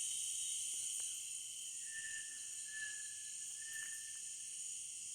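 Evening insect chorus: a steady, high-pitched buzzing and trilling of many insects. A few faint short whistle-like notes rise over it between about two and four seconds in.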